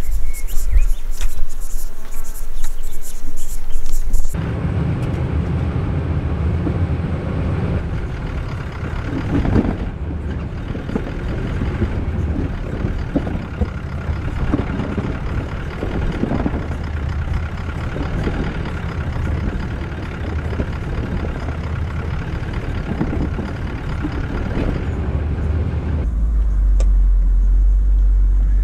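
A few seconds of background music, then a four-wheel drive crawling slowly down a steep, rutted rocky track: a steady low engine drone with occasional knocks and bumps. About 26 seconds in, the drone becomes deeper and louder, heard from inside the cabin.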